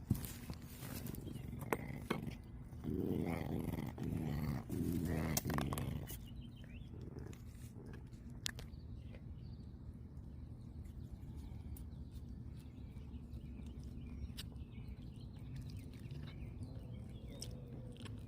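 Serval making three low, growly calls in quick succession about three seconds in, followed by scattered light clicks and rustling.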